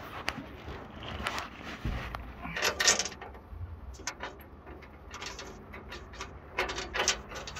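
Scraping, rattling and a few sharp clicks of metal being handled by hand inside the excavator's engine compartment, coming in irregular bursts with the loudest about three seconds in and again near the end.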